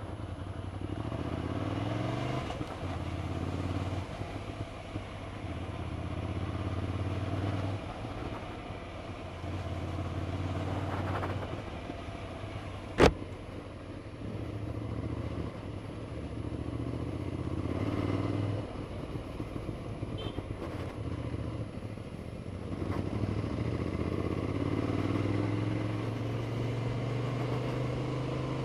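Motorcycle engine running on the move, its note rising and falling several times as the rider works the throttle. A single sharp click about halfway through.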